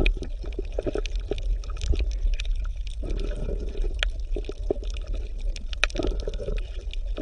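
Water bubbling and gurgling: irregular small pops and clicks over a steady low rumble.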